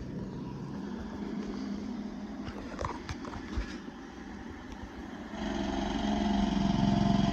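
Cummins diesel engine of a loaded log truck running as the truck pulls in. The engine sound steps up and grows clearly louder about five seconds in, with a few light knocks midway.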